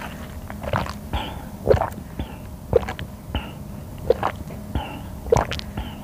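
Banana milk sucked through a straw from a small carton, with swallows about once a second, close to the microphone.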